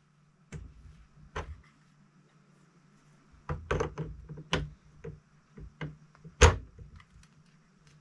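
Riflescope in Leupold quick-release rings being handled on the QR base of a Tikka T3x: a series of sharp metal clicks and knocks, with a cluster a few seconds in and the loudest knock about six and a half seconds in.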